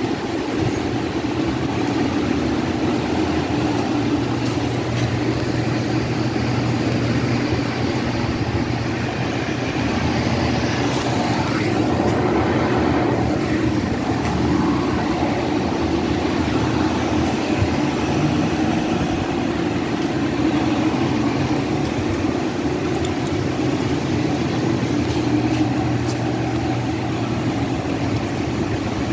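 Pierce Enforcer fire engine's diesel engine idling, a steady low hum that does not change.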